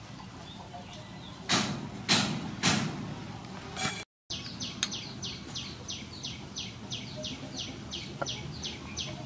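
Three cleaver chops on a wooden cutting board, cutting up sea snail meat, about half a second apart. After a cut, a bird calls with a rapid run of short falling chirps, about three a second.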